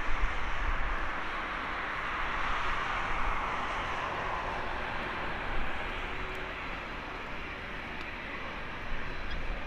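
Jet engine noise from a Boeing 787-9's Rolls-Royce Trent 1000 engines running at low taxi power as the airliner taxis off the runway after landing. It is a steady hiss that swells slightly a few seconds in.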